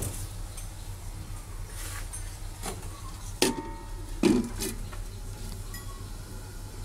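A large upturned aluminium bowl set down over a wok as a steaming lid, clanking against the metal a few times about halfway through; one knock leaves a brief metallic ring. A steady low hum runs underneath.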